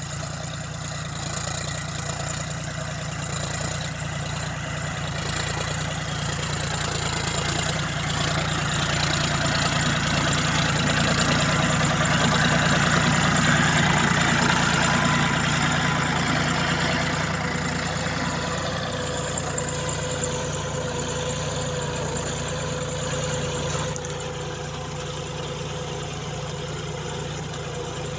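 John Deere 5050D tractor's three-cylinder diesel engine running steadily while ploughing. It grows louder through the middle and eases off again after about 17 seconds.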